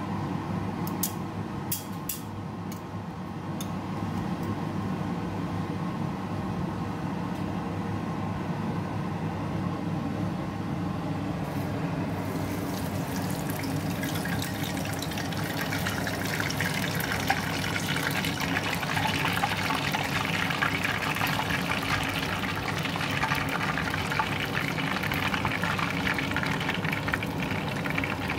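Hot oil sizzling in a small pan as a bread-wrapped ice cream ball deep-fries. The sizzle comes in about twelve seconds in and grows louder, over a steady low hum; there are a few light clicks before it starts.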